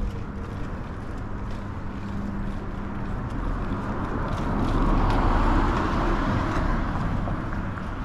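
A car passes by on the street: its engine and tyre noise grows louder, peaks about five seconds in, then fades away.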